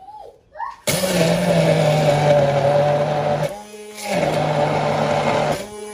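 Hand-held immersion blender running in pulses, chopping coriander leaves, garlic, onion and chillies in its beaker: a loud motor whir with a steady hum. It comes on about a second in, stops briefly near the middle, runs again, and cuts out just before the end.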